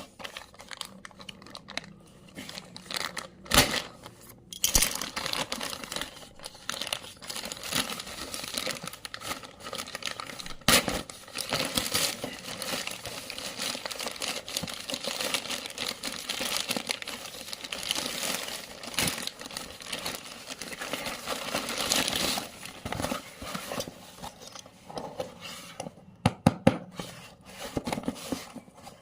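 Packaging being handled and torn open: continuous crinkling and rustling with tearing, broken by a few sharp knocks.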